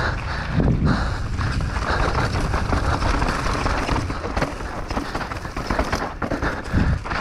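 Mountain bike ridden fast down a dirt trail: a constant rumble and rush of tyres over rough ground, broken by frequent rattles and clicks from the bike.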